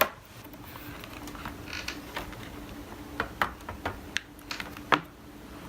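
Bottom cover of a 2009 MacBook being prised off, its clips letting go in a sharp click at the start and then a run of small clicks and snaps from about three seconds in, the loudest just before the end.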